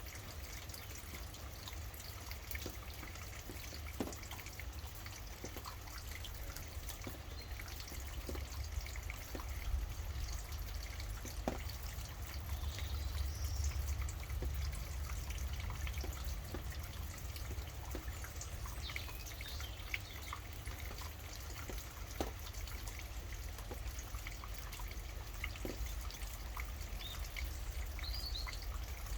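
Steady rain with scattered individual drops dripping, and a few faint, brief bird chirps now and then.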